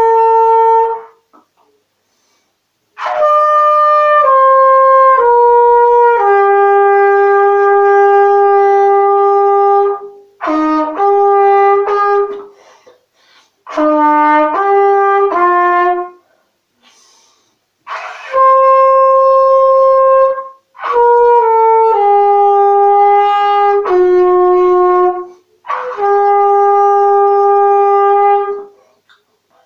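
Unaccompanied trumpet playing a slow melody of long held notes, in six phrases separated by short pauses.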